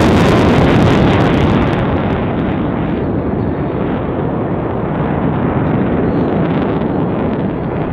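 F-16 Fighting Falcon jet roar just after a low pass: the high hiss drops away about two seconds in, leaving a steady deep rumble as the jet moves off.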